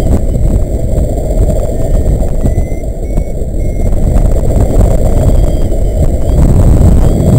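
Airflow buffeting the microphone of a camera mounted on a paraglider in flight: a loud, rough rush of low wind noise.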